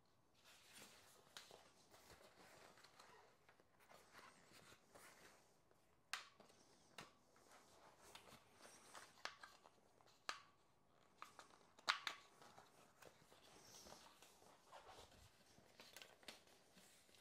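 A bicycle tyre being worked onto a rim by hand: faint rubbing and rustling of the rubber, with scattered sharp clicks, the loudest about twelve seconds in.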